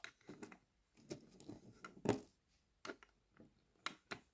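Scattered small clicks and taps of tiny model parts being handled and pressed into place: buffers going into a 3D-printed model wagon's buffer beam. The loudest tap comes about two seconds in.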